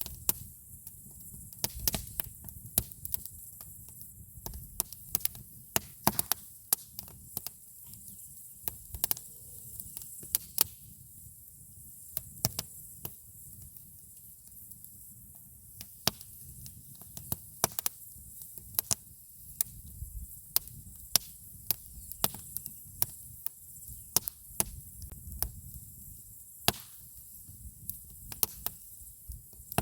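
Wood campfire crackling, with many irregular sharp pops and snaps over a low, steady rumble of the burning fire.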